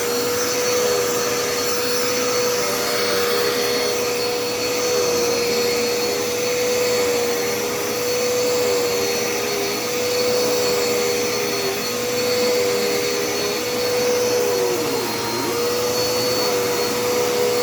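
Dirt Devil Endura Reach bagless upright vacuum running steadily. Its motor tone holds level while a lower note sags briefly every second or two, with one deeper dip near the end.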